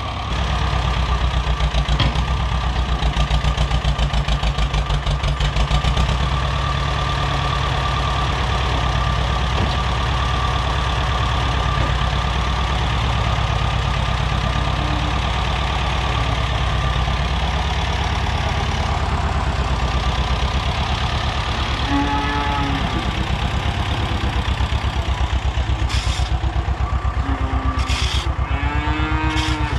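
Tractor diesel engine running steadily under work, its firing pulses even throughout. A few short rising-and-falling calls from the cattle come in about two-thirds of the way through and again near the end.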